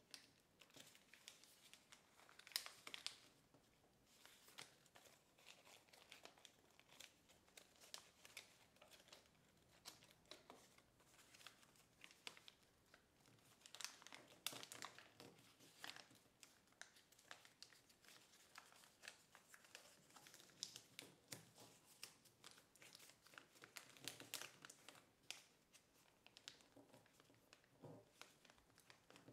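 Faint crinkling and rustling of kraft paper being folded and creased by hand: scattered small crackles, with busier clusters a few seconds in, around the middle and again past three-quarters of the way.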